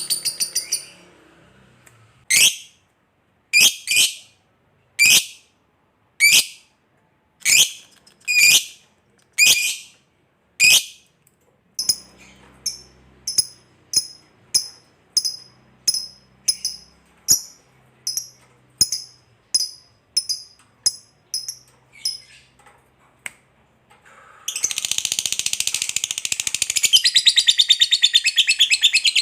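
Lovebird calling. First comes a string of sharp single calls about one a second, then quicker, shorter chirps. About 24 seconds in it breaks into a long, fast chattering trill, the 'ngekek panjang' prized in a lovebird fighter.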